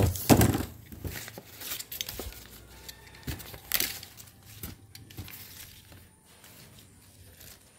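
Cardboard shipping box being opened by hand: a loud tearing scrape at the start, then scattered rustles and clicks of cardboard flaps, styrofoam packing and a paper note, tailing off to quiet.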